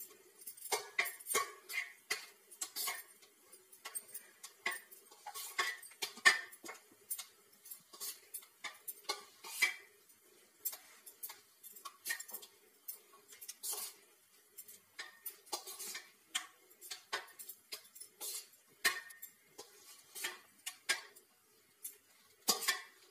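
Flat metal spatula scraping and clicking on a stainless steel plate as a thick gram-flour batter is spread thin, in short, irregular strokes a few times a second.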